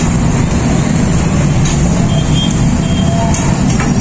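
A steady, loud low mechanical rumble like a motor running, with a couple of faint clicks.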